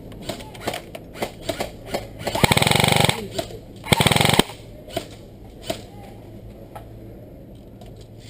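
Airsoft guns firing: scattered single shots, then two short full-auto bursts of rapid fire, one about two and a half seconds in and another about four seconds in, followed by a few more single shots.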